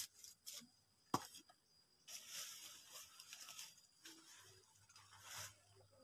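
Dry fallen leaves rustling and crackling faintly as they are handled and pushed about, with one sharp tap about a second in.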